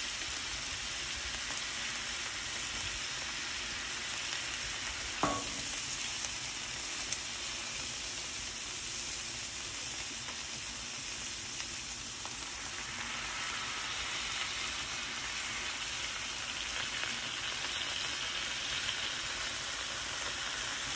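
Smash-burger patties of ground beef and sliced onion sizzling steadily on a hot Blackstone flat-top griddle as they are pressed flat. A single short knock about five seconds in.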